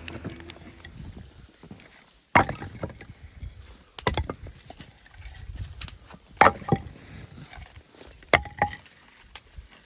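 A series of sharp knocks, four of them about two seconds apart, some doubled.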